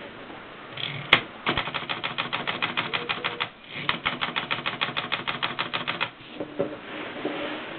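1920s Erika manual typewriter being typed on. One sharp clack comes about a second in, then two runs of rapid, even key strikes, about ten a second, with a brief pause between them.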